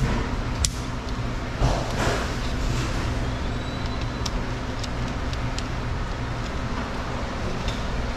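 Steady low machinery hum, with scattered light clicks and taps as a bolt-in circuit breaker and an insulated screwdriver are handled at an open breaker panel.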